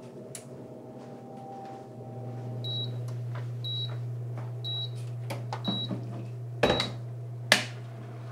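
Countertop oven running with a steady low hum, then five short high beeps about a second apart signalling that cooking is done. Near the end the oven door opens with a loud clunk, followed by a sharp click.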